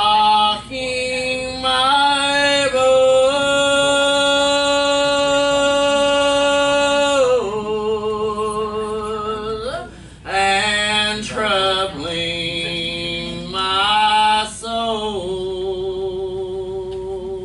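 A voice singing a slow gospel song, drawing out the words into long notes with vibrato. The longest held note runs from about three to seven seconds in, with short breaths between phrases.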